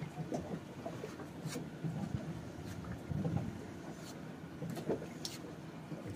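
Scattered light clicks and scrapes of a metal putty knife against a mixing board as putty is worked, over a low irregular rumble.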